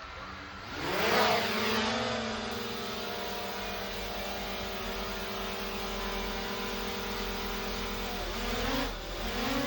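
Small DJI quadcopter drone's propellers spinning up with a rising whine about a second in, then a steady buzzing hover. Near the end the pitch dips and climbs back twice as the motors change speed.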